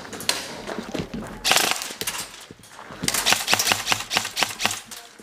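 Airsoft gunfire: strings of sharp, rapid clicking shots, a short burst about a second and a half in, then a faster, denser run through the second half.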